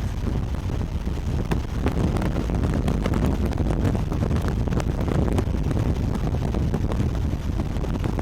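Road and wind noise inside a moving car: a steady low rumble with scattered sharp ticks.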